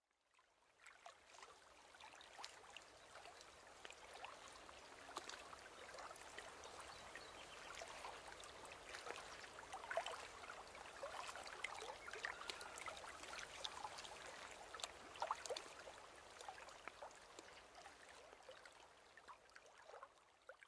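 A small stream babbling and trickling, with many small splashes and drips. It fades in over the first couple of seconds and fades out near the end.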